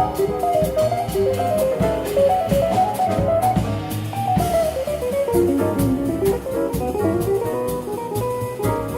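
Live small-group jazz: an electric jazz guitar plays fast runs of single notes, with walking bass and drum kit underneath.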